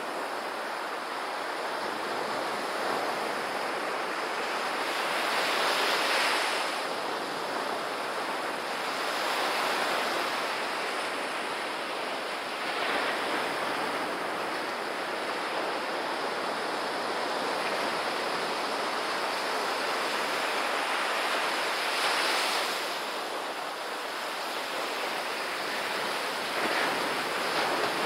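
Surf: small waves breaking and washing up a sandy beach in a steady wash that swells louder every few seconds as each wave comes in.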